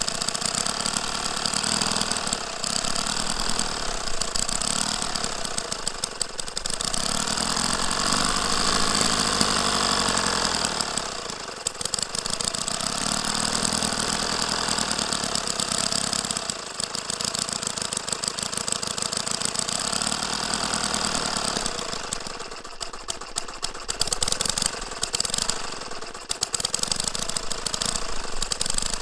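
Hoglet model V-twin petrol engine running, its speed rising and falling several times as its carburettor is adjusted by hand, with brief dips about a third of the way in and again near the end.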